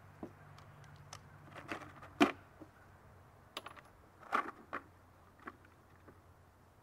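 Light metallic clicks and clinks of rifle cartridges being handled and knocking together. The loudest clink comes about two seconds in, with a quick cluster of them a little after four seconds.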